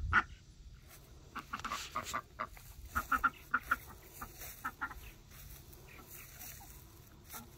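Domestic ducks giving a quick run of short, soft quacks and chattering calls, between about one and five seconds in.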